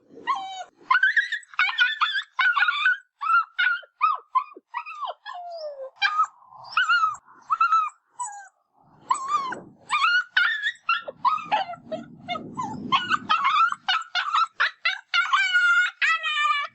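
Dog vocalising in quick succession: short high yips and barks, and whimpering whines that fall in pitch. About twelve seconds in there is a rough low stretch, and near the end a long wavering whine.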